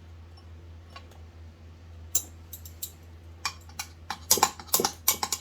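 Small metal clicks and taps of chainsaw parts and a bolt being worked into place by hand. The clicks are sparse at first and come thick and fast from about two-thirds of the way in, over a steady low hum.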